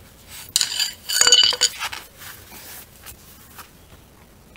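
A quick cluster of light metallic clinks and rattles with a short ringing, about half a second to two seconds in: metal parts or tools knocking together during work under the car.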